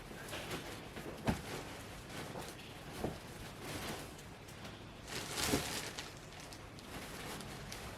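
Loose fibre stuffing being pushed by hand into a zippered fabric pillow cover: soft, irregular rustling and brushing of fabric and fibre, with a couple of light knocks and a louder rustle about five seconds in.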